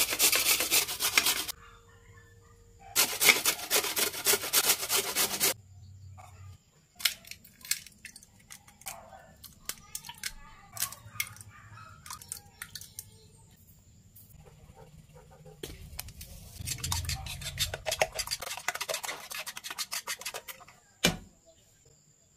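Yellow squash grated on a metal box grater in two runs of quick scraping strokes. Then eggs are tapped and cracked into a wooden bowl, a scatter of light knocks and clicks. Later comes another long run of rapid scraping strokes, and one sharp knock shortly before the end.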